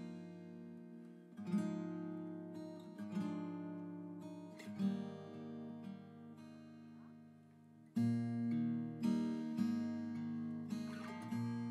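Background music: acoustic guitar strummed in slow chords, with a louder strum about eight seconds in.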